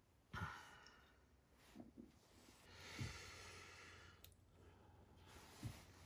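Near silence: faint breath-like hiss twice and a few soft knocks of small handling.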